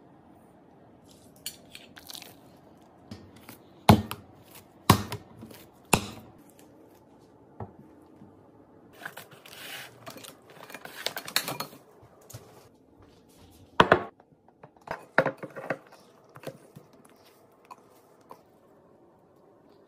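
Kitchen handling sounds while making bread dough: scattered sharp knocks of utensils and containers on the counter, and a few seconds of dense rustling, pouring noise around ten seconds in as liquid is poured from a glass jug into the mixing bowl.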